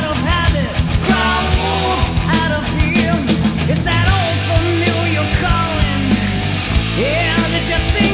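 Loud rock song: a lead vocal over driving drums and sustained bass and guitar.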